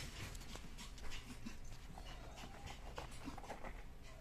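Two cats play-fighting on a cardboard scratcher: soft, irregular scuffling and scratching of paws and claws on the cardboard.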